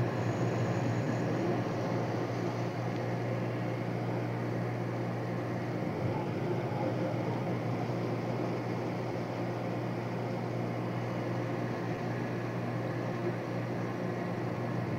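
A car ferry's engines running with a steady low drone under an even rushing noise.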